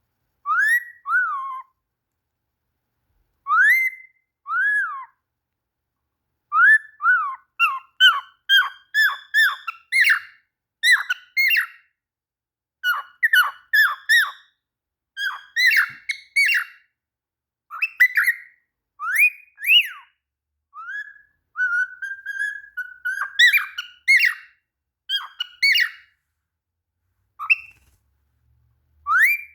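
Cockatiel whistling and chirping: a long run of short, clear whistled notes that swoop up and down, in quick phrases separated by short pauses, with one longer level note about three-quarters of the way through.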